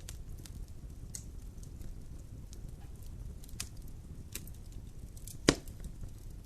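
Wood fire burning in a fireplace: a steady low rumble with scattered sharp crackles, and one loud pop near the end.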